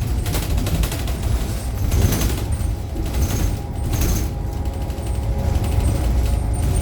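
Ride inside a 2018 New Flyer XDE60 diesel-electric hybrid articulated bus: a steady low rumble with a couple of held whining tones from the drive, and bursts of rattling noise every second or two.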